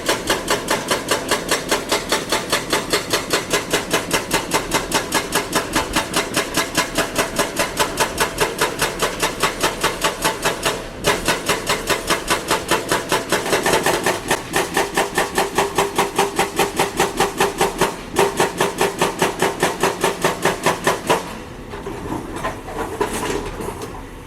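Excavator-mounted hydraulic rock breaker hammering at about five blows a second. It pauses briefly twice and stops near the end, leaving the machine's engine running.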